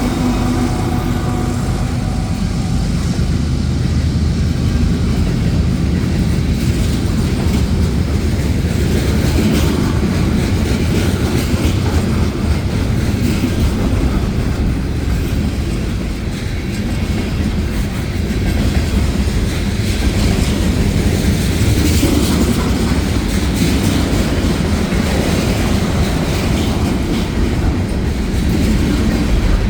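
Freight cars of a Union Pacific manifest train rolling past at steady speed: a continuous loud rumble of steel wheels on rail, with a faint rhythmic clicking.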